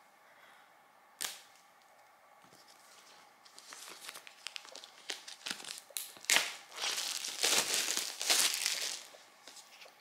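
Packaging on an Apple Magic Keyboard box being torn and crinkled open as it is unsealed. There is a sharp click about a second in, then a run of ripping and rustling that builds and is loudest in the second half.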